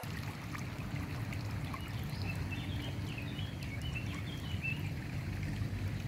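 Shallow river water running over stones: a steady rush, with faint short high chirps in the middle.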